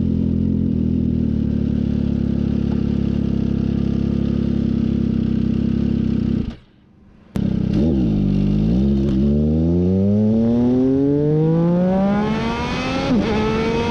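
MV Agusta Brutale 800 RR's three-cylinder engine through an SC-Project SC-1 exhaust, running at steady revs. The sound cuts out for under a second about six and a half seconds in. Then the revs climb steadily through the second half.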